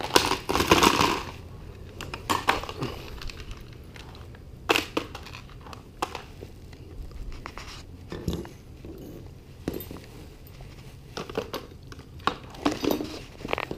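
Copper pipe jigs being handled and laid into a clear plastic tackle box: scattered clicks and knocks of copper on plastic. There is a burst of rustling in the first second or so.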